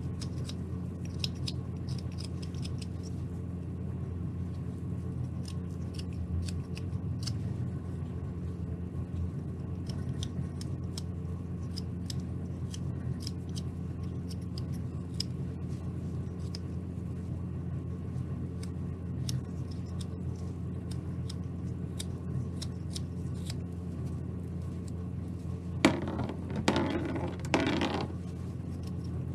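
Carving knife paring a small basswood ball: faint scattered clicks and short scrapes of the blade shaving the wood, over a steady low hum. Near the end comes a brief, louder scraping and rustling.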